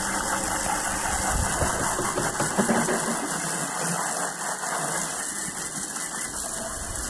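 Water from a pistol-grip garden hose nozzle spraying steadily onto a Jeep's engine bay, splashing over the engine, hoses and plastic covers as engine degreaser is rinsed off.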